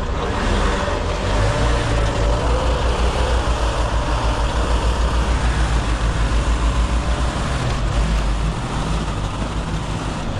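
Diesel semi-truck engine running close by as the truck pulls forward, with a low, evenly pulsing throb that eases off near the end.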